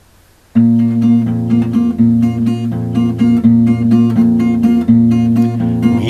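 Acoustic guitar coming in about half a second in and playing the introduction to a song: chords in a steady rhythm of about four strokes a second over a held low bass note.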